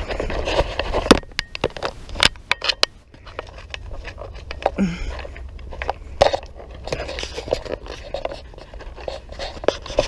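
Footsteps on a dirt woodland trail: irregular crunches and scrapes, mixed with rubbing and knocks from a handheld camera.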